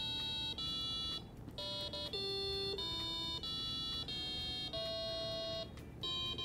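A melody of electronic square-wave beeps, a microcontroller board's programmed song played through a small loudspeaker. There are about ten notes at changing pitches, each held half a second to a second with a brief break between them, and one longer note about five seconds in.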